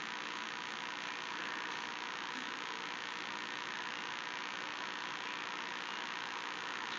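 Steady hiss with a faint hum underneath. No hiccups or other separate sounds stand out.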